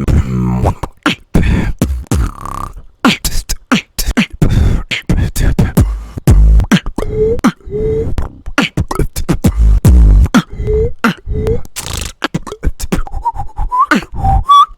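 Beatboxing: a fast run of mouth-made kick, snare and click sounds with deep bass hits, broken by short pitched vocal blips that sit higher near the end.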